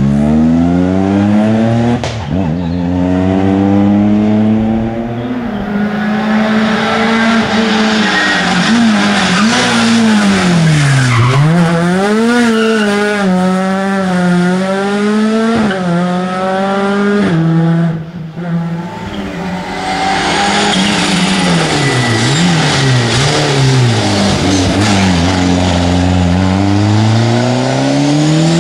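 Rally cars, Ford Fiestas among them, powering one after another through a tight tarmac bend, engines revving hard with the pitch rising and falling through gear changes and wheelspin, tyres squealing. The engine sound breaks off sharply twice, about two seconds in and near eighteen seconds.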